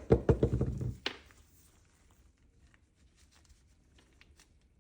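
A short clatter of small parts being handled in about the first second, then a few faint light clicks.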